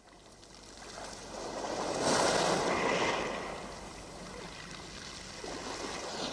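A wash of surf: noise swelling up from near silence to its loudest about two to three seconds in, then settling into a steady hiss.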